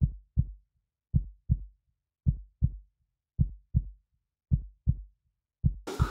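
Heartbeat sound effect: slow, deep lub-dub double thumps, about one pair a second, over dead silence. Room noise fades back in near the end.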